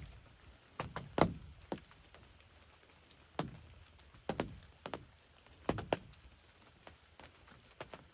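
About a dozen scattered single knocks and taps at irregular spacing, each a sharp tap with a short low thud after it.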